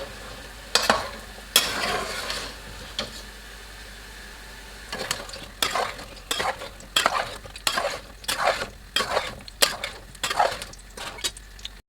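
A spoon stirring chunks of cauliflower and potato into cooked mutton in an open pressure cooker, scraping and knocking against the pot. A few strokes come at first, then after a short lull a steady run of quick strokes, about two to three a second.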